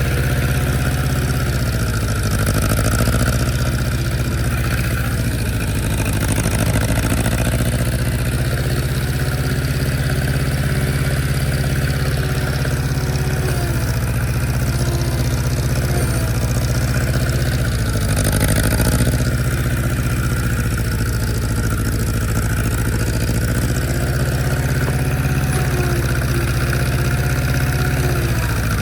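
A vehicle engine running steadily, its pitch shifting slightly a few times as the engine speed changes.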